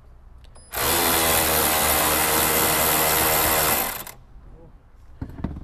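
Cordless screwdriver with a 10 mm magnetic socket spinning out a dash bolt. It runs steadily for about three seconds, starting just under a second in.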